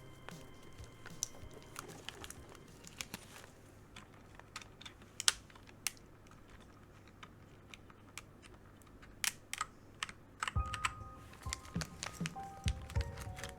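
Keys of a Keychron K4 mechanical keyboard with brown switches clacking in scattered, irregular presses, coming thicker about nine seconds in.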